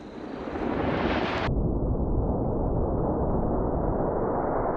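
The impact of a 50 BMG full metal jacket round on a boat anchor, slowed down into a long, deep rumble. It swells over the first second, turns duller about a second and a half in, and holds steady to the end.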